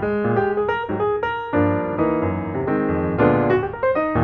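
Background piano music: a quick succession of notes, several chords played at once.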